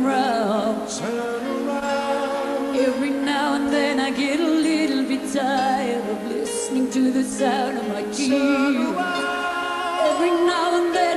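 Live pop ballad: a female vocalist singing with vibrato over grand piano and orchestra.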